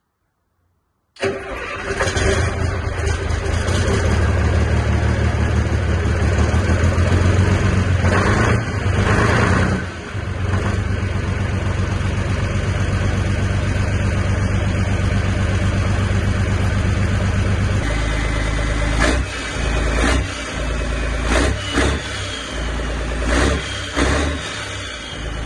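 Truck engine starting about a second in and then running with a steady low rumble. It is the first start in about five weeks, on freshly fitted batteries. Around two-thirds of the way through the note drops, and then comes a series of short rev surges.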